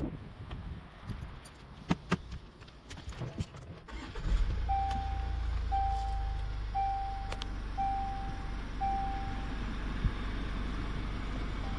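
A few clicks and knocks of keys and handling, then about four seconds in a Jaguar F-Pace engine starts and settles into a steady low idle, its newly programmed key now starting the car. Over the start the car's warning chime beeps five times, about once a second.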